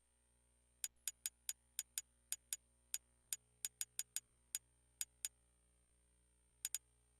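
A run of faint, sharp clicks, about seventeen of them at an uneven pace of two or three a second, with a pause of more than a second before the last two.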